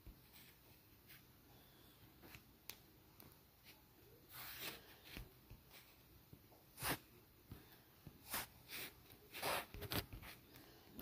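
Faint scattered handling noises: a few light clicks, then several short rustling, hissy bursts from about four seconds in.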